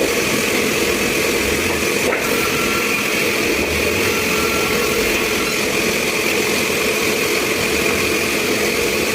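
Sawmill machinery running steadily.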